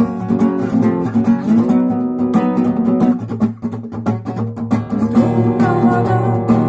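Acoustic guitar strummed in a steady rhythmic pattern, chords ringing between the strokes, with a brief softer moment about halfway through.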